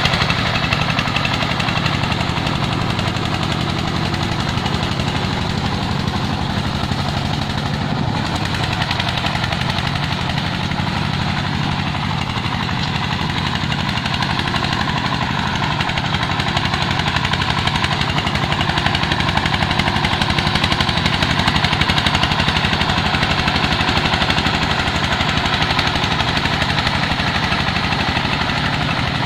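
Single-cylinder diesel engine of a công nông farm truck running steadily with a fast, even chugging beat.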